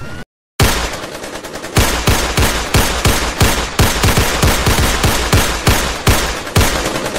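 Cartoon gunfire sound effect: after a rising whine cuts off and a short silence, rapid automatic fire starts about half a second in and keeps going, at about four shots a second.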